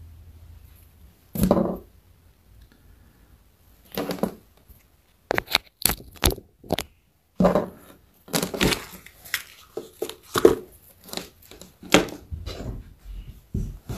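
Handling noise close to the microphone: irregular rustling, crackling and knocks of cloth and hands brushing against it.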